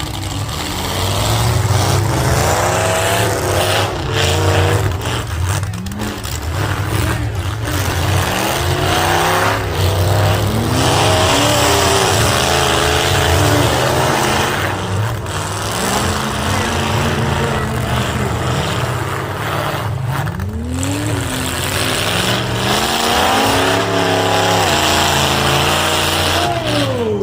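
Demolition derby cars' engines revving hard, their pitch climbing and dropping over and over as they accelerate, with several sharp thuds of cars colliding.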